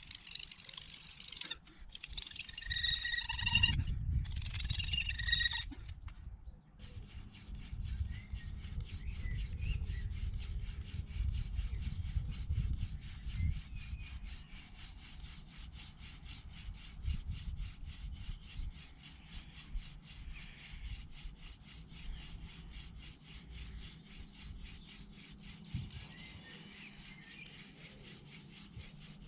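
Hand drill fire by friction: an elder spindle spun back and forth between the palms, drilling into an ivy hearth board. It makes a steady, rhythmic wood-on-wood rubbing.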